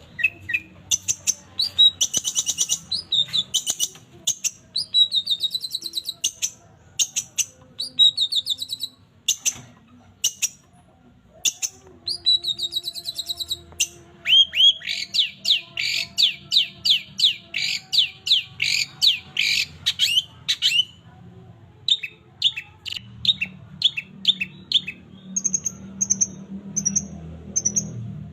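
Long-tailed shrike (cendet) singing a varied run of sharp chirps and short buzzy trills. About halfway through it gives a fast series of downward-sweeping notes, about three a second. Near the end come short high notes repeated about twice a second.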